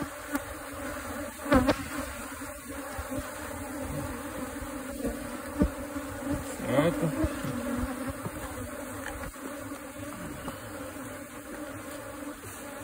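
Honeybee colony buzzing steadily, disturbed and nervous as its combs are pulled out of a tree trunk. A few short knocks from the handling, the loudest about a second and a half in and again past five seconds.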